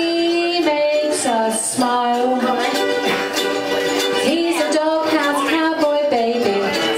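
Several ukuleles strumming an instrumental intro together, with a buzzy kazoo playing the melody in held notes that slide into pitch.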